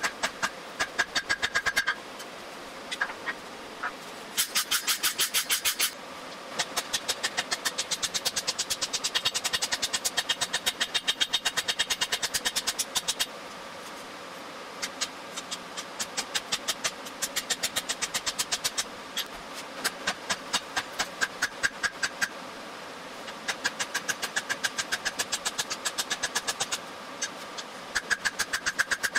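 Hand hammer striking red-hot steel on an anvil in quick runs of blows, several a second, with short pauses between runs. The anvil rings with each strike.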